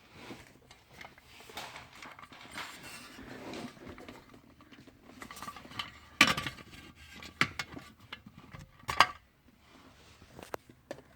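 Handling noise of a cover being worked loose under a car's dashboard: rustling and small clicks, with two sharp knocks about six and nine seconds in.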